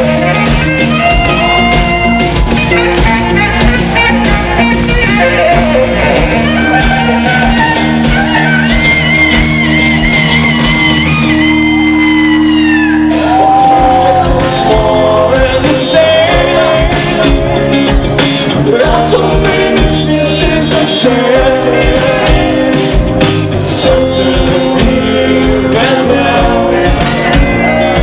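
Live rock band playing with electric guitars, bass guitar, drums and saxophone, and a lead vocalist singing. Just before the middle the drums and low end drop out for about two seconds, then the full band comes back in.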